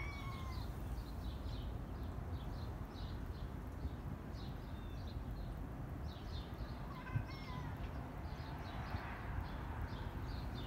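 Small birds chirping in quick, high, repeated chirps, with two short sliding calls near the start and about seven seconds in, over a low steady rumble.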